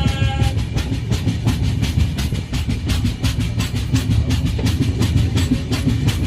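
Train running at speed: a heavy, steady rumble with a rapid rattling clatter of wheels on the rails. A brief pitched tone dies away about half a second in.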